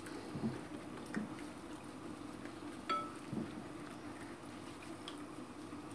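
Gloved hands rubbing and squeezing soaked almonds in a bowl of water to slip their skins off, with faint wet sloshing and a few small knocks. One knock about three seconds in rings briefly. A steady low hum runs underneath.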